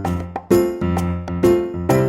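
Background music: a bright, light tune with a struck note about every half second.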